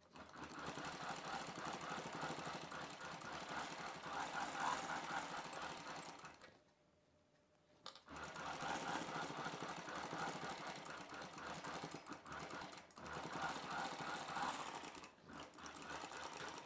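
Electric straight-stitch sewing machine running, stitching a seam through dress fabric and its neck facing. It stops for about a second and a half partway through, then runs again.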